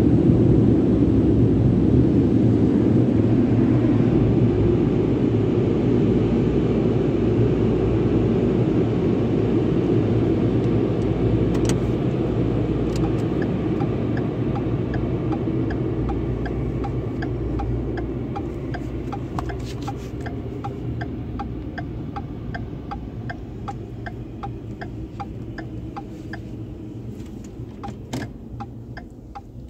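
A low, steady rumble inside a vehicle's cabin that fades gradually as the vehicle drives on. From about halfway, a turn-signal indicator clicks evenly, about one and a half times a second.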